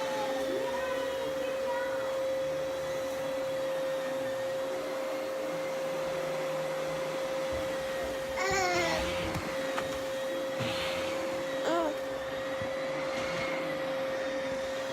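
Vacuum cleaner running steadily with a constant motor whine. A young child gives a few short high-pitched babbles about halfway through and again a little later.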